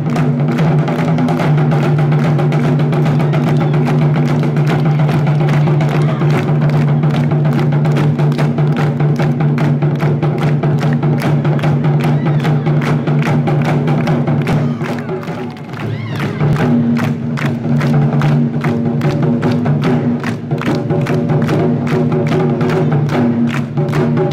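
Nagado-daiko (barrel-shaped taiko drums) beaten hard and fast with wooden bachi sticks, in a dense, driving rhythm of rapid strokes over a steady low boom. The playing eases briefly a little past halfway, then picks up again.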